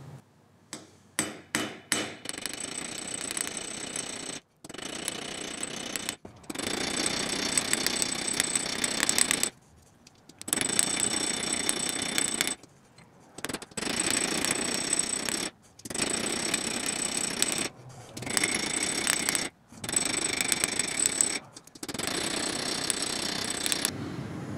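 Small cross-peen hammer tapping on a steel rivet at a drawing compass's pivot, set on an anvil, peening the rivet head over. A few separate taps come first, then runs of fast, continuous tapping with a metallic ring, broken by short pauses.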